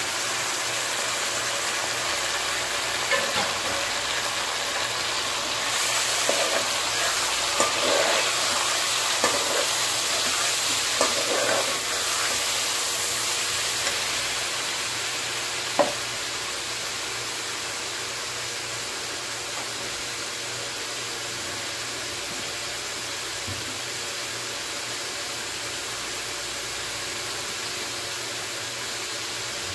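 Raw chicken pieces frying with sliced onions in hot oil in a wok, a steady sizzle. A steel ladle knocks and scrapes against the pan several times in the first half, with one sharp click about 16 seconds in.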